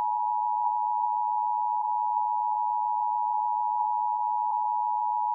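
Emergency Alert System attention signal: two tones sounded together in a steady, unbroken drone, announcing a tornado warning about to be read.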